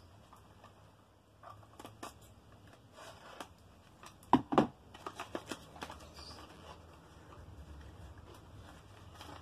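Scissors snipping the tape on a small cardboard box: scattered light clicks, then two sharp snips about four seconds in, followed by a run of small ticks and cardboard handling as the box end is worked open.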